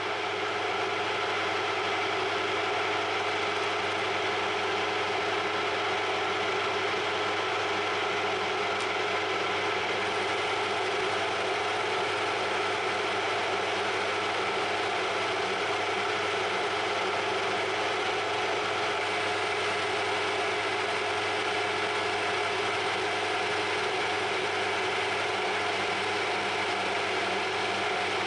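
Harrison M300 lathe's geared headstock running steadily under power, a whine made of several even tones, while a tool takes a turning cut along a bar of scrap metal.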